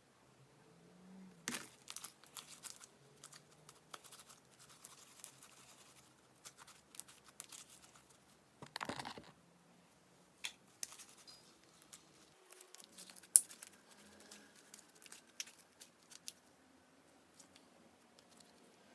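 Slime being squeezed and stretched by hand: irregular sticky crackles and pops, with a longer crackling burst about nine seconds in and one sharp snap about thirteen seconds in.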